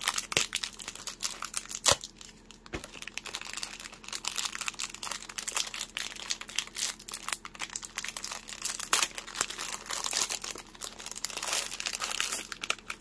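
Crinkling plastic packaging of a bead mix being handled and opened, an irregular crackle that goes on throughout, with one sharper click about two seconds in.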